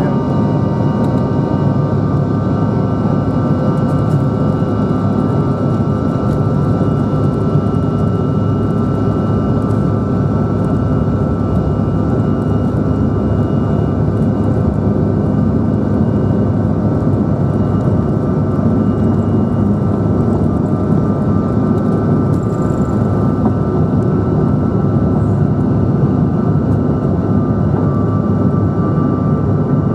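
Bombardier CRJ900's rear-mounted turbofan engines at takeoff power, heard from inside the cabin during the takeoff roll and lift-off. A loud, steady rush with a thin, steady whine over it.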